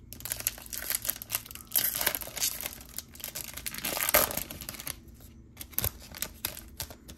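A Topps Chrome Platinum baseball card pack's wrapper being torn open and crinkled, loudest about two and four seconds in, followed by a few lighter clicks and rustles as the cards are handled.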